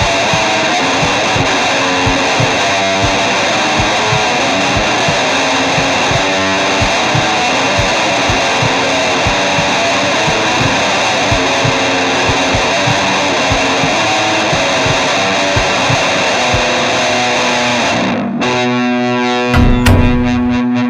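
Loud, heavily distorted electric guitar music run through effects: a dense noisy wall of sound over a quick, uneven run of hits. About eighteen seconds in it breaks off into a sustained ringing low chord with echo, with a low thud near the end.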